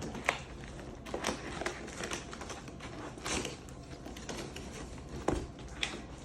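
A cardboard shipping box and its packaging being handled and opened: scattered rustles, scrapes and light knocks at irregular intervals, with a sharper knock about five seconds in.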